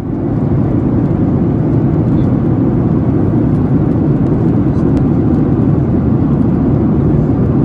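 Steady, low cabin noise of a jet airliner in cruise flight: engine and airflow noise heard from inside the cabin beside the wing.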